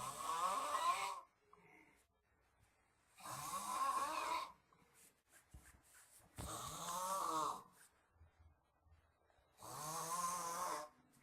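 A sleeping person snoring heavily: four loud snores, each a little over a second long and about three seconds apart, with quiet breathing gaps between.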